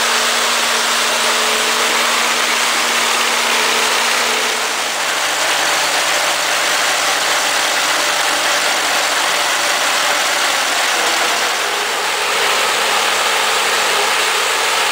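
Tractor engine running steadily together with the machinery noise of a tractor-mounted Mantovani corn ear harvester at work. The engine note drops about four and a half seconds in and comes back near the end.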